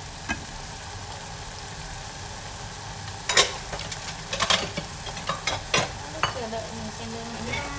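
Small river clams sizzling as they stir-fry in their own liquid in a stainless steel saucepan, cooking until they firm up. Wooden chopsticks click against the pan several times in the middle.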